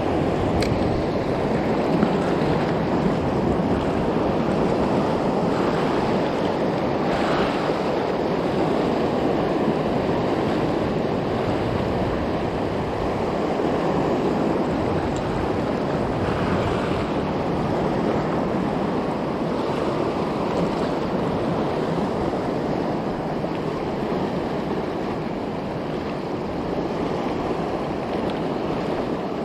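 Surf washing over and around shore rocks: a steady rush of sea water.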